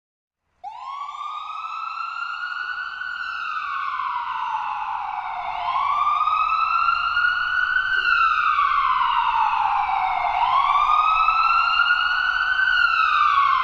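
A siren wailing, its pitch sweeping slowly up and down about every five seconds. It starts abruptly about half a second in and grows louder over the first few seconds.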